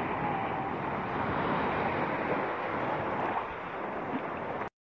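Open sea water lapping and sloshing, with wind buffeting the microphone as one steady rush; it cuts off suddenly near the end.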